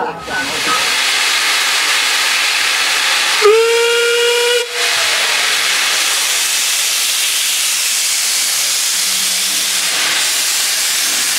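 Hunslet quarry steam locomotive hissing steadily as steam blows off. About three and a half seconds in, its whistle gives one short blast of about a second, rising slightly in pitch as it sounds.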